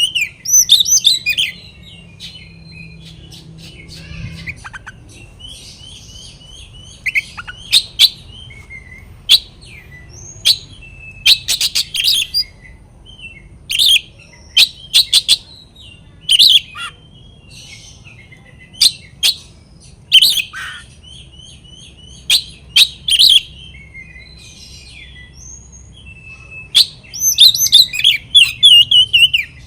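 Oriental magpie-robin singing a loud, rival-seeking territorial song: bursts of sharp high whistles and rapid trills with short pauses between them. A faint low hum runs underneath.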